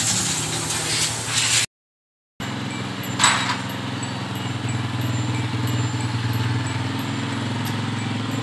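Honda CG125's single-cylinder engine idling steadily, with a faint high ticking over it and one short click about three seconds in. Before that comes a short burst of hissing workshop noise, which cuts off to silence for under a second.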